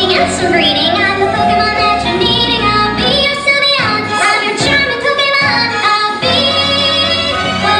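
A song with a high female voice singing the melody over an instrumental backing, playing loudly and without a break.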